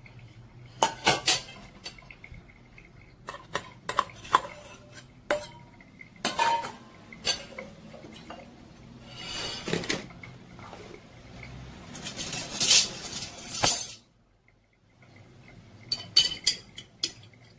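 Metal spoon clinking and scraping against stainless steel mixing bowls while minced pork is scooped onto diced vegetables: a run of sharp clinks with a couple of longer scrapes.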